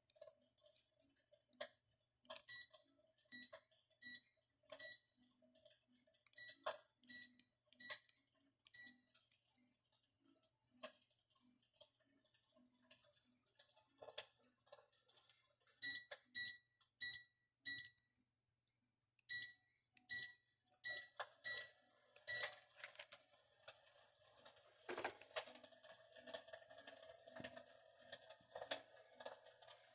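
Electrolux electric fireplace's control unit beeping: short high beeps in quick runs of several, about two a second, with faint clicks between, as its settings are stepped through. About three quarters of the way in, a steady whirring noise sets in and carries on.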